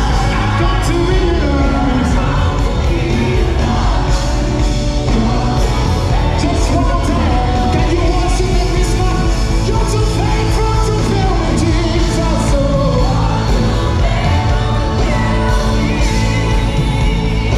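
Live gospel worship music loud through a concert hall's sound system: lead and backing singers over a band with heavy bass and drums with cymbals.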